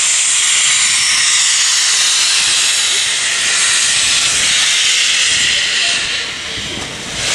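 A steam locomotive venting steam with a loud, steady hiss that eases briefly near the end.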